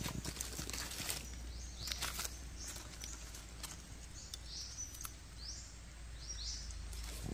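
Forest ambience: a bird giving short high chirps over and over, roughly one or two a second, with a few soft rustles and clicks and a low steady background noise.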